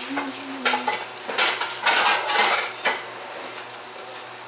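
Plates and dishes clattering and clinking as they are taken out and set down, a burst of knocks in the first three seconds. Under it, the stir-fry sizzles faintly in its covered pan.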